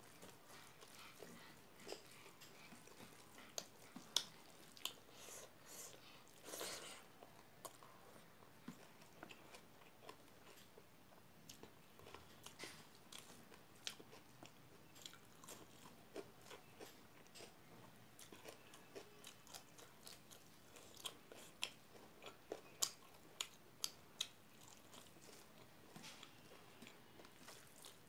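Quiet, close-up eating sounds: chewing a mouthful of rice, with many short sharp mouth clicks and smacks scattered throughout as rice is eaten by hand.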